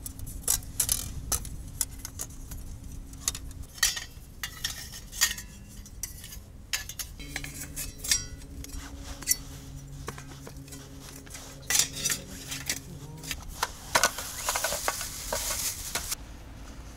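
Clatter of camping cookware and utensils being handled and set out: a run of uneven knocks, clinks and scrapes.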